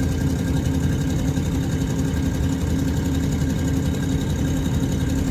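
Steady engine and tyre noise of a vehicle driving along a paved road, heard from inside the cab: an even low rumble with a constant hum.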